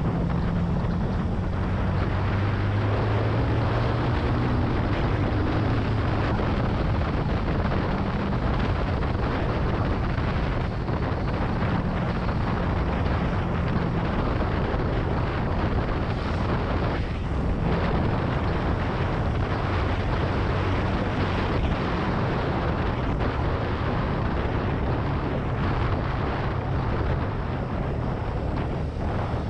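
Benelli TNT 25's single-cylinder engine running as the motorcycle rides along, its pitch shifting a little now and then, under heavy wind noise on the microphone.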